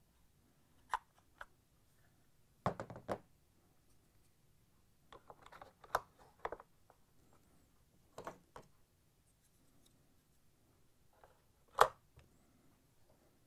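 Plastic inserts of a Whirlpool washer detergent drawer being fitted into the drawer by hand: scattered plastic clicks and knocks in small clusters, the sharpest one near the end.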